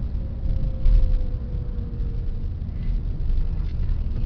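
Car cabin noise while driving: a steady low engine and road rumble, with a faint thin whine that drifts slowly down in pitch over the first half and a brief bump about a second in.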